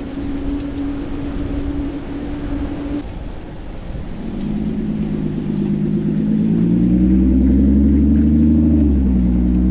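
Traffic noise and wind on a bike rider's camera in wet city streets. From about four seconds in, a nearby motor vehicle's engine joins in with a deep hum that builds and is loudest near the end.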